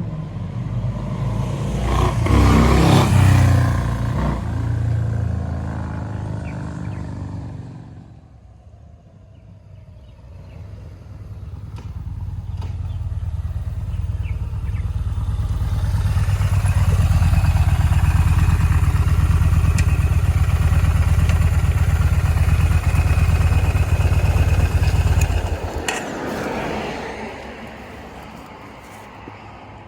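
V-twin cruiser motorcycle engines. First one revs up and fades away; after a short lull an engine builds to a loud, steady run and then cuts off abruptly with a click.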